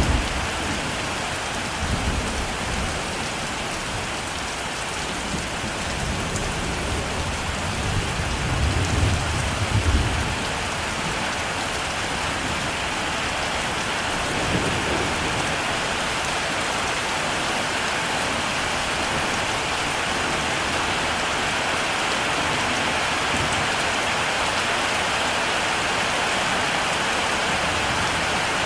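Heavy rain falling steadily, with low rolling thunder in roughly the first ten seconds, swelling most strongly around eight to ten seconds in before fading out to the even rain.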